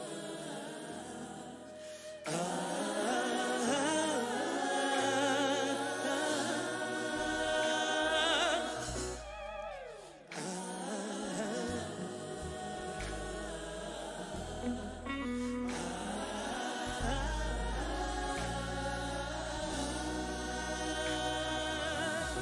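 Gospel worship song sung by a choir of voices over a low bass accompaniment that steps from note to note, with a brief drop in the music about ten seconds in.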